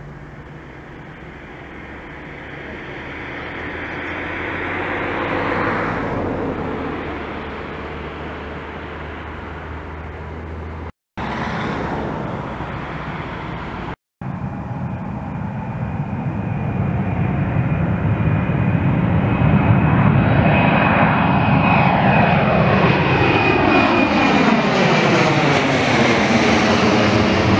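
Embraer 170 jet's twin turbofan engines at takeoff power, growing louder as the jet rolls down the runway and climbs past, broken by two short gaps about eleven and fourteen seconds in. A steady high whine sits over the engine noise, and near the end the sound takes on a sweeping, phasing quality as the jet passes.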